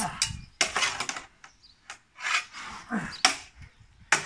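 Weapons clashing in medieval sparring with billhook against sword and wooden shield: a series of sharp wooden knocks and clatters, irregularly spaced, the strongest about half a second and about three seconds in.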